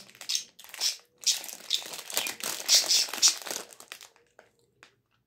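Thin clear plastic bag crinkling in irregular rustles as it is handled and set down, stopping about four seconds in.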